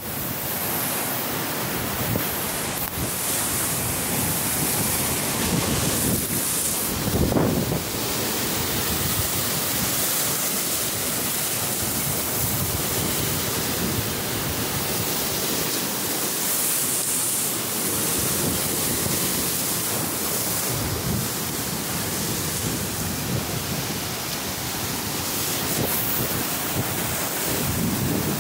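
Typhoon storm-surge waves breaking and washing over a seawall in strong wind, with wind buffeting the microphone. The noise is steady, with one louder surge about seven seconds in.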